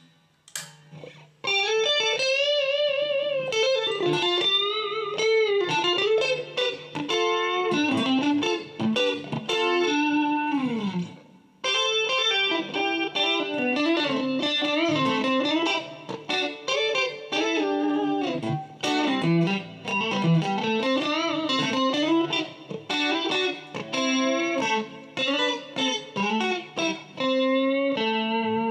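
A 1985 Matsumoku-built Westone GT electric guitar played with a clean tone: a single-note lead melody with vibrato, bends and slides, pausing briefly about eleven seconds in.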